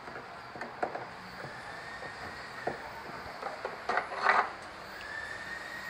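Scattered light knocks and clatter of small objects being handled, the loudest a short rattly burst about four seconds in. A rooster crows faintly near the end.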